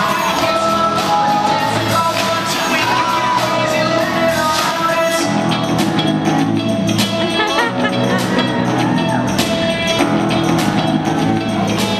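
Recorded pop song playing loudly, with a sung vocal over a steady beat.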